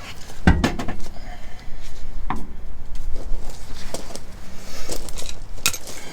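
A heavy car wheel and tyre being handled: a heavy thump about half a second in, a sharper knock about two seconds in, and scraping and clicks near the end.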